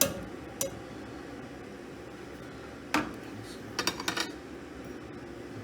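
A few sharp clinks of a metal utensil against a cooking pot: one right at the start, another just after, one about three seconds in and a quick cluster of several a second later, over a steady low background hum.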